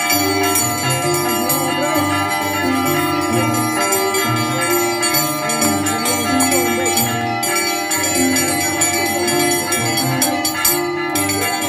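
Festive music: a bass line stepping from note to note and a melody, over continuous bright metallic bell-like ringing.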